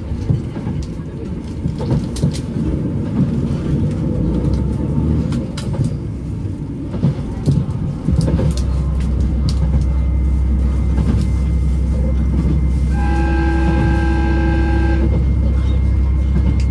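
Inside a KTR8000-series diesel railcar under way: wheels clicking over rail joints, with the low engine drone stepping up and growing louder about halfway through as the train pulls harder. Near the end, a steady horn tone sounds for about two seconds.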